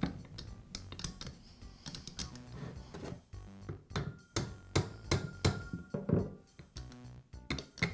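Repeated sharp clicks and light knocks of metal parts as a Makita grinder's armature is fitted back into its gear housing, densest about halfway through, over quiet background music.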